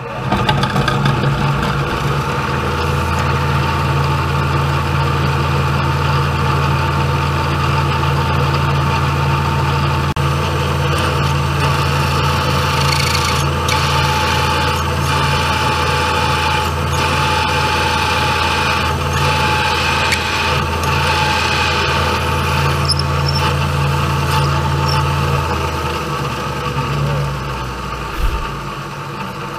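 Vertical milling machine's spindle running as a 3/8-inch twist drill bores through a steel sleeve, with a steady high whine from the cut through the middle stretch. The spindle winds down near the end as the hole is finished.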